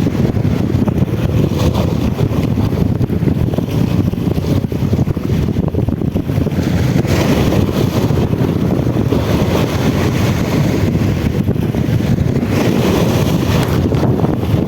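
Wind buffeting the microphone in a steady low rumble, with stronger gusts about halfway through and again near the end.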